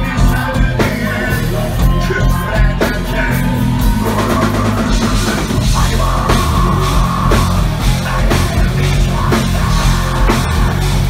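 Live heavy metal band playing at full volume: a pounding drum kit and electric guitars, with a singer's voice coming in over them.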